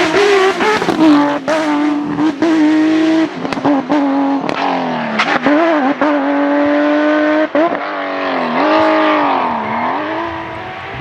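Porsche rally car's engine held at high revs, with many sharp cracks and brief drops in pitch. Near the end the pitch swoops down and back up as the sound grows fainter.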